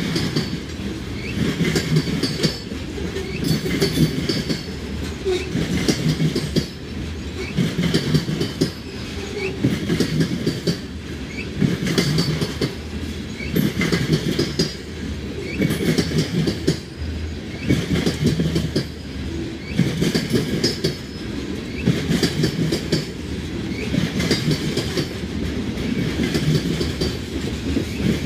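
Loaded covered hopper cars of a grain train rolling slowly past. Their wheels clack over the rail joints in a repeating rhythm about every two seconds, with brief high wheel squeals.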